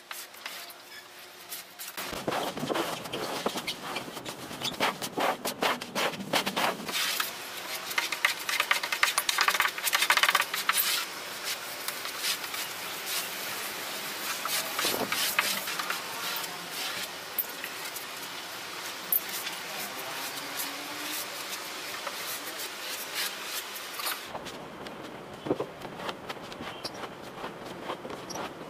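A metal putty knife spreading and scraping wood filler across a plywood door, in quick repeated scratchy strokes.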